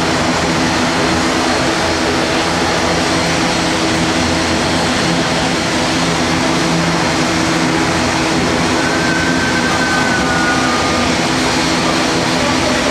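ATR-72 twin turboprop engines running steadily as the airliner taxis after landing, heard through terminal window glass: a constant drone with several steady low hums.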